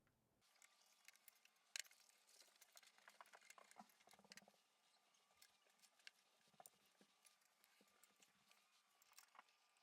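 Faint, irregular clicks and taps of tools and metal parts being handled while an antique mechanical cash register is taken apart, with one sharper click about two seconds in and a busier patch in the middle, over a faint steady high hum.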